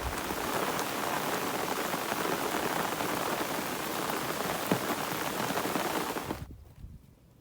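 Steady hissing noise that cuts off abruptly about six and a half seconds in.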